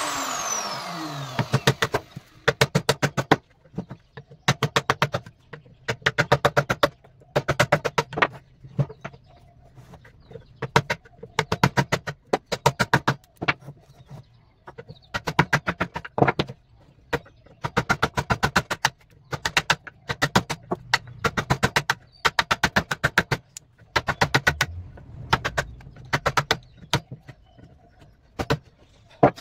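An electric router winding down after being switched off, its whine falling away over the first two seconds. Then a hammer strikes a chisel into wood in quick runs of several blows with short pauses, cleaning out the routed slot.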